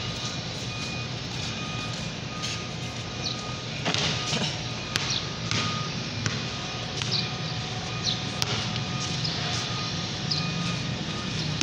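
A fixed-pitch electronic beep repeating on and off over a steady low hum, with a few sharp knocks of a basketball bouncing on a concrete floor.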